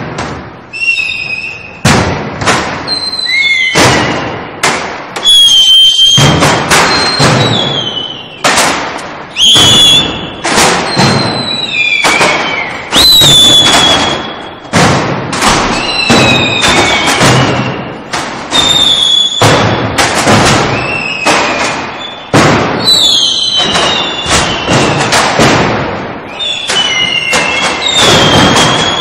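Mascletà: a rapid, uneven string of loud firecracker bangs mixed with whistling fireworks whose pitch falls.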